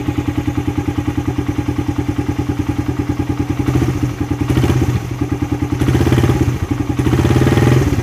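Suzuki Raider R150's single-cylinder four-stroke engine idling through its stock muffler with the catalytic converter removed, revved briefly several times in the second half. The exhaust note is tinny, like a tin can, without crispness.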